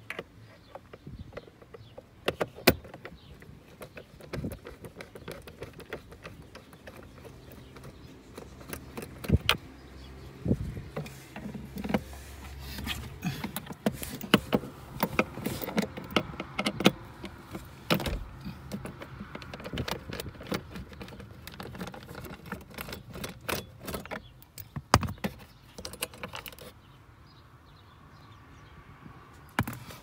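A long-shafted hand tool working a screw through an access hole in the plastic dashboard trim, with irregular clicks and knocks throughout that thin out near the end.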